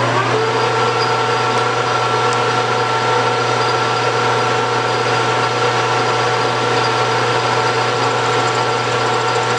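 Metal lathe spindle and gearing reaching speed at the start, then running steadily with a constant whine and hum, while a boring bar takes a light clean-up cut inside the bore of a brass bushing.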